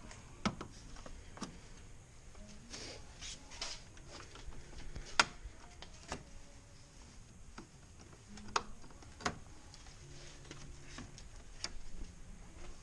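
Scattered sharp clicks and snaps of plastic push-pin clips being pried up and pulled out of a car's grille with a flathead screwdriver, the loudest about five seconds in.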